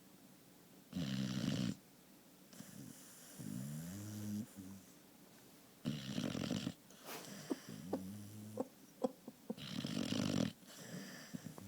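A sleeping pet snoring loud, with three noisy snoring breaths about four to five seconds apart. Between them come softer pitched breaths that rise in pitch, and a few small clicks between the second and third snore.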